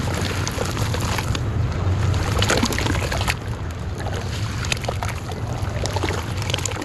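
Hands crumbling and squeezing dry, gritty clay chunks into a basin of water: continuous gritty crackling and crumbling mixed with wet sloshing and squishing of the mud, over a steady low rumble.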